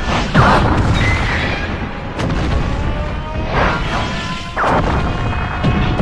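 Giant-monster fight sound effects: several booming impacts and crashes, the loudest about half a second in and others around two and four and a half seconds, over background music.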